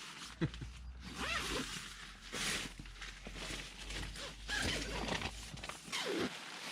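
Tent zipper being pulled in several irregular strokes, with rustling of the tent fabric.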